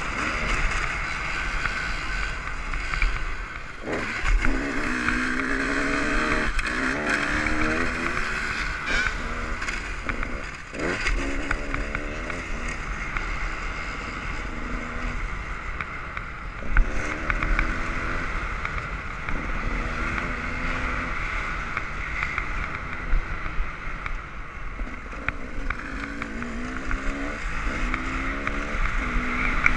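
Dirt bike engines running hard, revving up again and again in rising runs as the bikes accelerate through the gears. A few sharp knocks are heard along the way.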